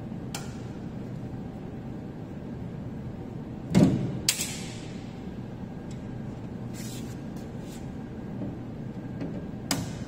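Front panel of a Carrier floor-standing air conditioner being pried and knocked with a screwdriver. There is a loud thump about four seconds in, then a sharp clack, a few light clicks, and another knock near the end, over a steady hum.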